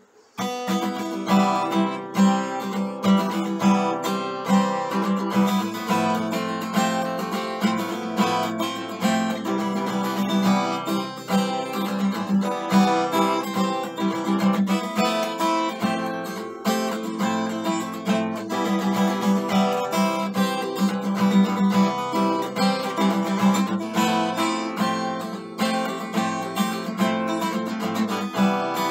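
Solo acoustic guitar playing, a continuous flow of strummed chords and picked notes, resuming after a brief break right at the start.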